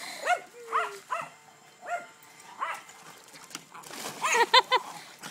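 A dog barking in short, high-pitched barks, about eight in all, with several in quick succession about four seconds in, while dogs splash in a plastic kiddie pool.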